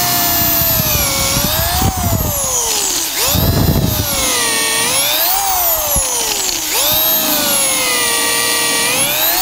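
Power drill boring into a wooden post, its motor whine dropping in pitch as it bogs down under load and speeding back up, several times over, with a rougher grinding of the bit in the wood around four seconds in.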